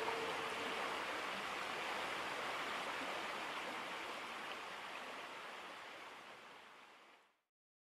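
Flowing river water, a steady even rush. It fades out gradually over the last few seconds and ends in silence.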